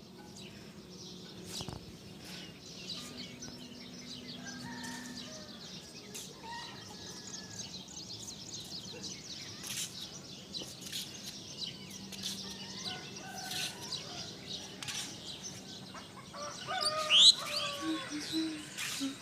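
Morning bird chorus: many small birds chirping and calling over one another in quick short notes, with a louder cluster of calls about three quarters of the way through.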